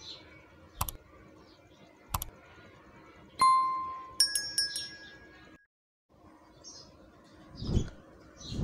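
Subscribe-button overlay sound effect: two mouse clicks, then a ringing bell ding and a quick run of chiming tones. Faint handling thumps from the packaging follow near the end.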